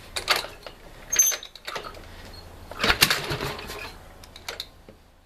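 A 1965 Harley-Davidson XLCH Sportster being kicked over: mechanical clatter and knocks from the kick-start and engine, the loudest about three seconds in, with no sign of the engine catching. The V-twin won't start.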